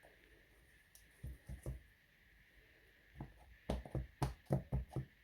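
Light taps of a photopolymer stamp being dabbed onto an ink pad to ink it up: a few taps about a second in, then a quicker run of about seven taps, roughly four a second, near the end.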